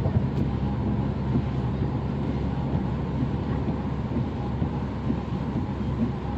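Steady road and engine noise of a car driving at speed on a motorway, an even rumble that does not change.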